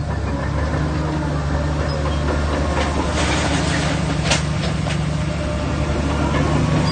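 Shantui bulldozer's diesel engine running steadily under load while pushing stone, with a cluster of metallic clanks and squeaks about three to four and a half seconds in, the sharpest just after four seconds.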